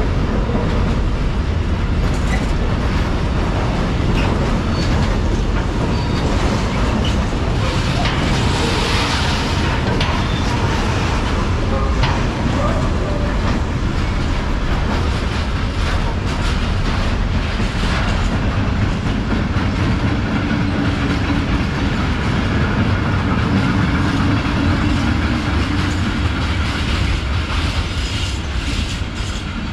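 Freight train rolling past, a steady heavy rumble with wheels clacking over rail joints, easing off slightly near the end.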